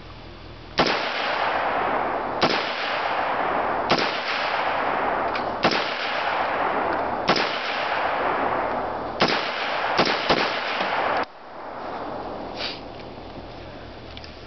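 AR-15 semi-automatic rifle fired about eight times at roughly one-and-a-half-second intervals, with two shots in quick succession near the end. A loud rushing noise fills the gaps between shots and cuts off suddenly just after the last one.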